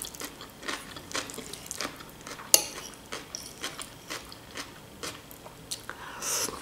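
Metal fork clicking and scraping against a plate as food is gathered and eaten, a run of short clinks with one sharp, louder clink about two and a half seconds in, amid quiet chewing.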